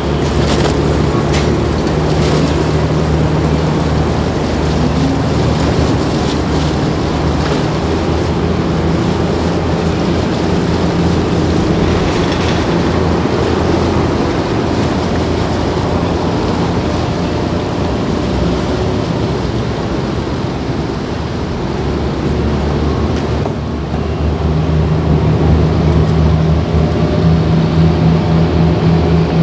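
Passenger ferry Dai-18 Wakato Maru's engine running steadily, with propeller wash churning the water as it pulls away from the floating pier. The engine gets louder about three-quarters of the way through.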